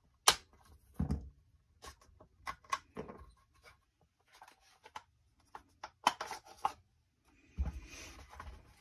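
Clicks, knocks and rattles of the Norinco Type 97 rifle's polymer buttstock storage compartment being worked open by hand, with a sharp click about a quarter second in and a rattling stretch with a low thud near the end.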